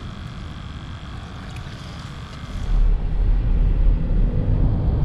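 Light outdoor hiss with a faint steady high tone, cut off about two and a half seconds in by the louder low rumble of road and tyre noise inside a Toyota's cabin driving on a highway.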